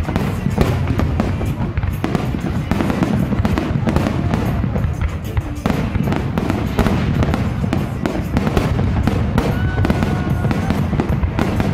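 Fireworks display: many aerial shells bursting in a dense, continuous barrage of booms and crackles, with no pause.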